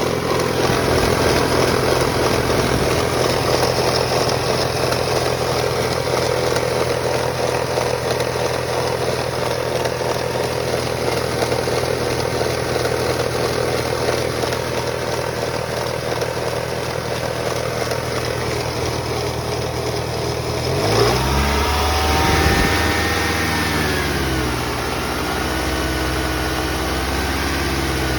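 2001 Toyota Camry engine running with a rattle, steady at idle, then revved up and back down about twenty seconds in and again a few seconds later.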